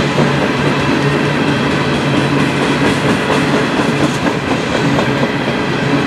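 Insulated boxcars at the rear of a freight train rolling past, their steel wheels running on the rails in a loud, steady rumble with a low hum.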